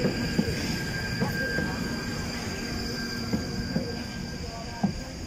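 London Underground Northern line tube train (1995 stock) at the platform: a steady running noise from the train, with several short sharp knocks spread through it.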